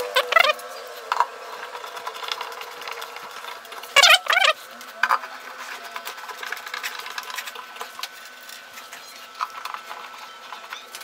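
Short squeaks and rubbing as the cabinet's board panels are pressed and slid into place in the frame: a few brief squeals with wavering pitch, the loudest about four seconds in, over a faint steady hum.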